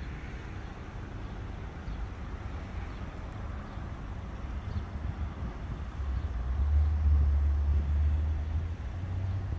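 Low outdoor rumble of distant road traffic and wind, swelling for a few seconds about six seconds in.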